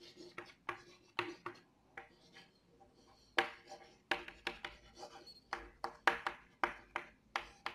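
Chalk writing on a blackboard: a quick, irregular run of short taps and scratches as letters and symbols are written stroke by stroke.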